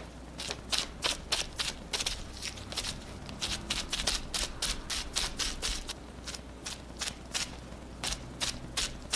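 Crumpled bubble wrap loaded with paint dabbed repeatedly onto paper: quick crinkly pats, about three a second, with a couple of short pauses.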